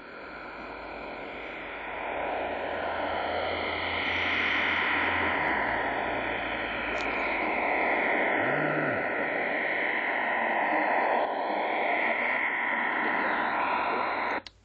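Shortwave radio receiver tuned to 9625 kHz giving a strange, wavering rush of noise with slow sweeping swishes, and a low hum under it for the first few seconds. The signal drops out briefly near the end. The uploader wonders whether HAARP is the cause.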